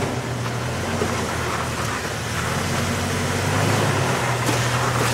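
Lifted Jeep's engine running steadily at low revs as it crawls over boulders.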